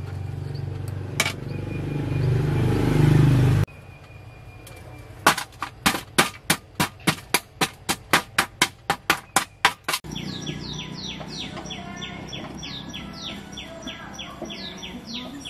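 Screwdriver scraping and chipping crumbled debris out of a car's floor access hole into a metal tray. First comes a low rumbling scrape that cuts off abruptly, then a quick run of sharp strikes, about four a second. After that, birds chirp outdoors in short falling notes.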